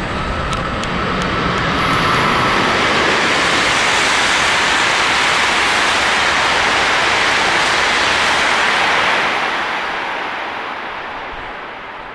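E5 series Shinkansen bullet train passing through a station at about 320 km/h without stopping: a rush of air and rail noise that holds at full loudness for several seconds, then fades away.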